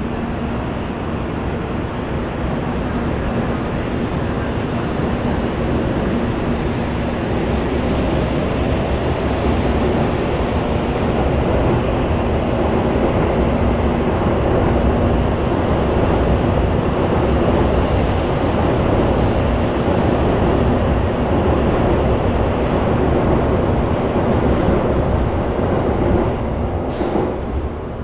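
N700-series Shinkansen train rolling along the platform, a steady rumble of wheels and running gear that grows louder over the first half and then holds.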